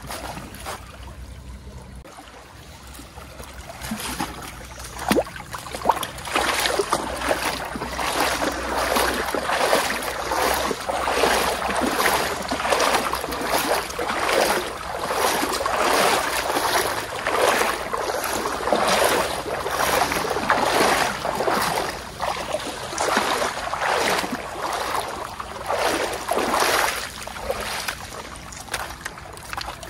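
Water splashing and sloshing in repeated surges about once a second, starting a few seconds in.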